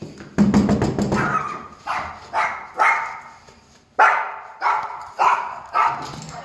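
A dog barking repeatedly, about eight sharp barks, after a loud rattling clatter about half a second in.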